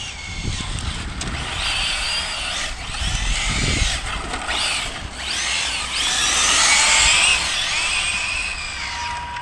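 Brushless electric motor and drivetrain of an Arrma Felony 6S RC car whining at speed, the pitch rising and falling several times as the throttle is worked, over tyre noise on tarmac.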